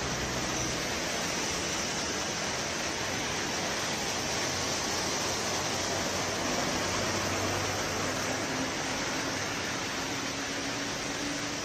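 Heavy rain pouring down, a steady even hiss. In the second half a faint low drone comes in, rising slightly in pitch.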